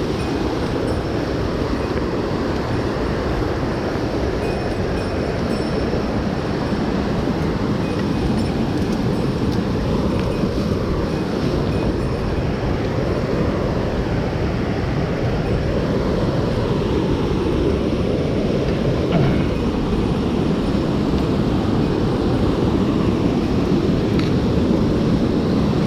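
Steady rush of a mountain stream's flowing water, a loud, even noise heaviest in the low end.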